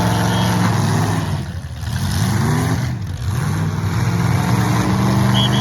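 Demolition derby car engines running loud, revving up twice in the middle, with a short high beep near the end.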